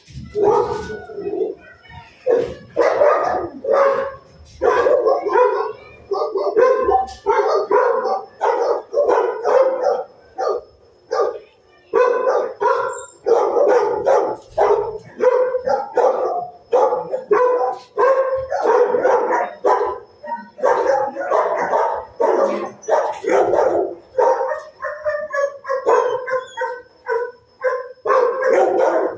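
Shelter dogs barking without let-up, short loud barks coming one after another, often overlapping.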